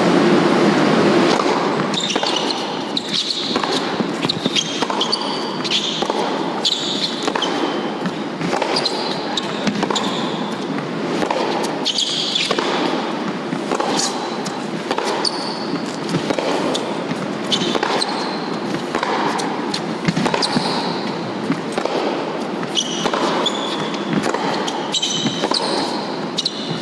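Tennis match in an indoor arena: the crowd applauds loudly in the first second or two, then chatters, while tennis balls bounce on the court and are struck by rackets in serves and rallies.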